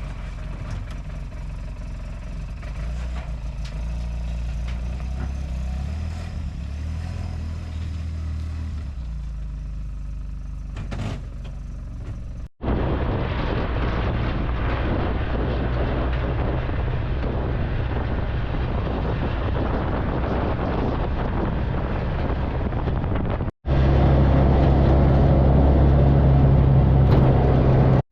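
ATV engine running steadily, in three stretches joined by abrupt cuts about twelve and twenty-three seconds in. The later two are louder and carry much more rushing noise over the engine's low hum.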